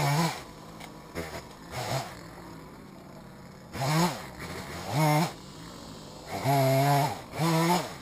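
Chainsaw revved in short throttle bursts, rising, holding and dropping back to idle between them, with a longer burst near the end.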